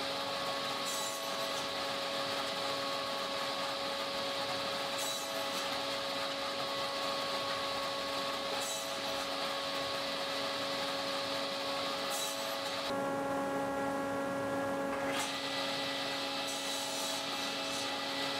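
Table saw running with a steady hum while short lengths are crosscut from thin 6 mm plywood strips on a sled. Each cut adds a brief burst of cutting noise, about every three to four seconds.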